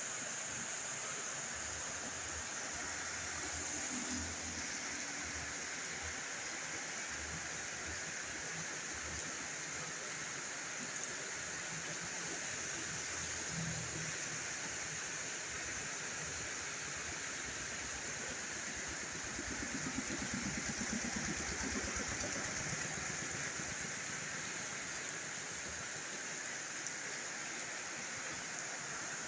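Heavy rain pouring down steadily, with a low rumble swelling for a couple of seconds about two-thirds of the way through.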